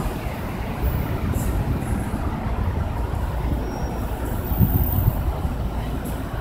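Outdoor wind buffeting the microphone: a steady, unsteady-edged low rumble, with a stronger gust about four and a half seconds in.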